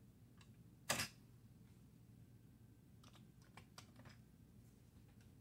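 Key presses on a Commodore 64 keyboard, entering a filename and offsets into a JPEG viewer: one louder key press about a second in, then a quick run of about six key presses around three to four seconds in.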